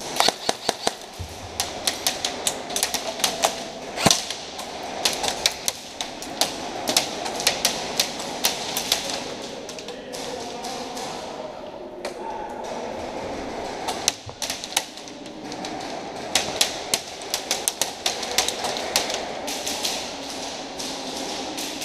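Airsoft gunfire: runs of rapid sharp clicks and taps, several a second, from guns firing and BBs striking the arena's wooden walls. The runs come in bursts with short pauses, and there is one louder crack about four seconds in.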